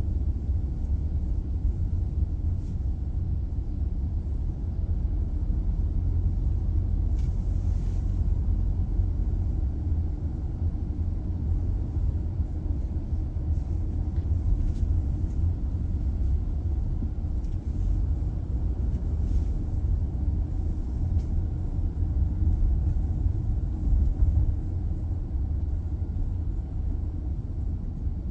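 Steady low rumble of a Toyota car heard from inside its cabin as it drives in traffic: engine and tyre noise.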